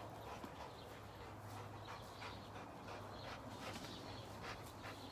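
German Shepherd moving at heel on grass, faintly heard as short, irregular soft noises over a low steady hum.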